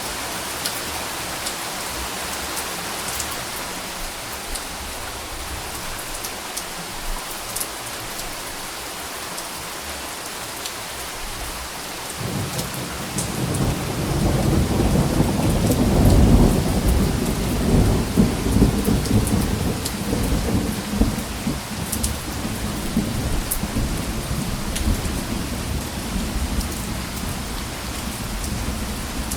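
Steady rain falling, with a roll of thunder that begins a little under halfway through, peaks a few seconds later and rumbles on as it slowly fades.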